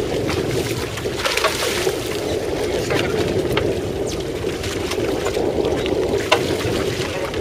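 A fishing boat's engine running with a steady drone, with water splashing alongside the hull and a few sharp clicks and knocks on board.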